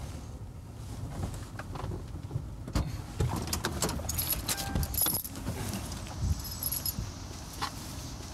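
Police patrol car on the move: a steady low rumble in the cabin with scattered metallic jangling, clicks and rattles, and a short beep about halfway through.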